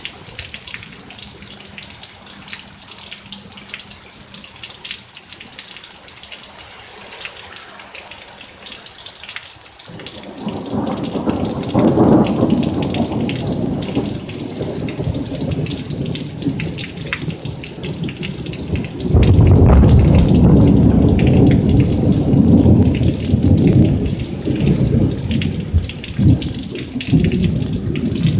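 Steady rain hiss, joined about a third of the way in by a low rumble and about two-thirds in by a louder, longer low rumble.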